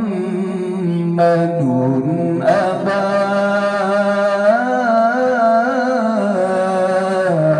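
A man reciting the Quran in melodic tilawah style, amplified through a microphone and PA loudspeakers. His voice holds long notes with ornamented turns sliding up and down in pitch, unaccompanied, and a new phrase begins about two and a half seconds in.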